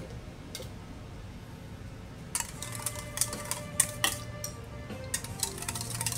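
Stainless steel bowls clinking and scraping against each other as sauce is scraped from a small bowl into a large mixing bowl. The irregular metallic clinks start about two seconds in, with a light ringing from the bowls.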